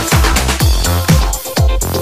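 Electronic dance music with a kick drum on every beat, about two beats a second, over a steady bass line.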